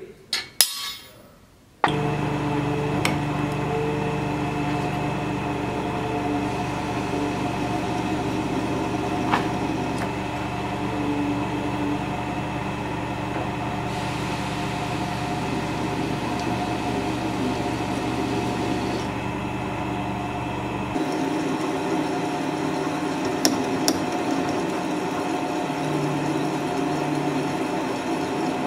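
A few sharp metal taps of a hammer on a centre punch marking the sword's hilt, then from about two seconds in a drill press running steadily as it drills holes through the metal hilt.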